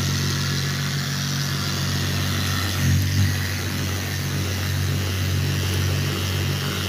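Milwaukee cordless polisher spinning a polishing pad over a wet vanity top: a steady motor hum, with a brief surge in level about three seconds in.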